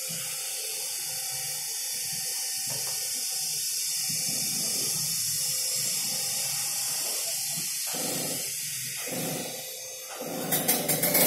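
Two-stroke chainsaw engine running with a steady hiss while its carburettor adjustment screw is turned during tuning. Near the end it gets much louder, with a rapid pulsing beat.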